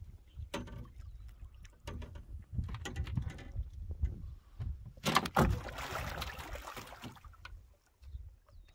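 Water splashing and sloshing against a boat's side as a hooked barbel (catfish) thrashes at the surface, with a few knocks on the hull; the biggest splash comes about five seconds in.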